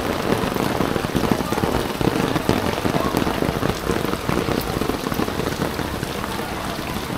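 Steady rain falling, a dense, even patter of drops hitting a nearby surface and the flood water.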